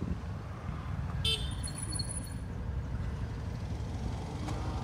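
Low, gusting wind rumble buffeting the phone's microphone, with a brief high-pitched chirp a little over a second in.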